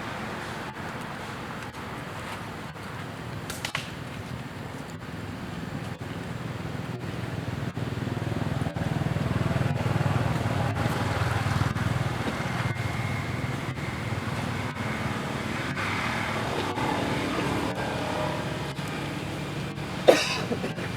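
Steady low rumble of a motor vehicle, swelling through the middle and easing off again, with a sharp knock near the end.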